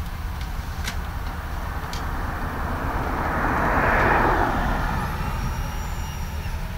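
A vehicle passing on the street, its noise swelling to a peak about four seconds in and then fading. Underneath is the steady low rumble of idling emergency vehicles.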